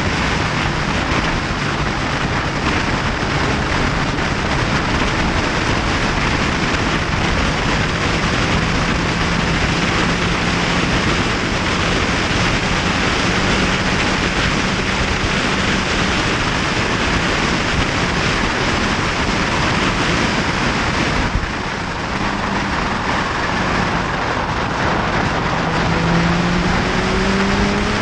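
Motorcycle riding at speed: loud wind rush on the microphone over a steady engine hum. The hum briefly drops away about three-quarters of the way through. Near the end it rises in pitch as the bike accelerates.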